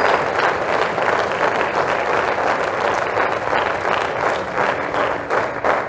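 Audience applauding in an auditorium, a dense steady round of clapping that begins to thin near the end.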